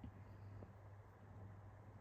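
Near silence: room tone with a low steady hum and a faint tick or two.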